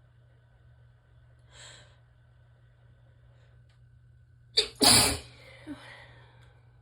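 A person sneezing once: a short sharp catch, then straight after it a louder explosive burst lasting about half a second, a little past halfway. A faint breath comes about a second and a half in.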